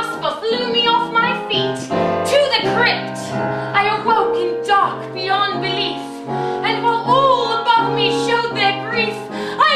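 Stage-musical song: singing with vibrato over piano accompaniment and held low notes.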